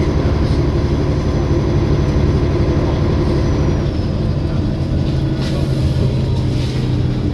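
Olympian double-decker bus engine running steadily, with a thin high turbocharger whine over it that dips slightly in pitch about three and a half seconds in.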